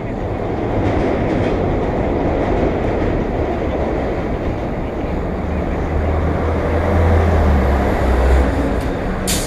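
City street traffic and road rumble heard from a camera on a moving bicycle. A deep low hum swells from about five seconds in, and there is a sharp click near the end.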